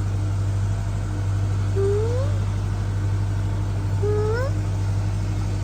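Steady low drone of a farm machine running close by, with two short rising calls about two and four seconds in.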